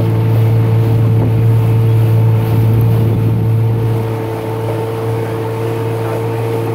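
A small motorboat's engine running steadily under way: a constant low hum with a fainter higher whine over it, easing slightly about four seconds in.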